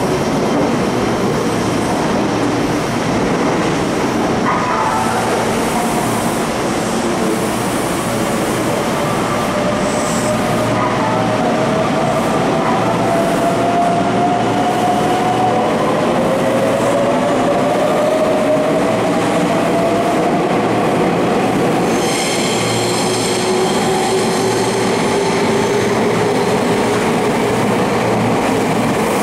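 Eight-car Meitetsu 3700 and 3500 series electric train pulling out of an underground station platform and passing close by. The wheels run loudly on the rails, and the motor whine rises in pitch as the train gathers speed. A new set of high whining tones starts about two-thirds of the way through.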